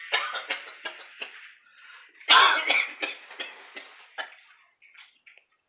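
Indian ringneck parakeet imitating a human cough: a run of short coughs and throat-clearing sounds, the loudest about two and a half seconds in. The bird has picked up the cough by mimicking its owner, who has been coughing for days.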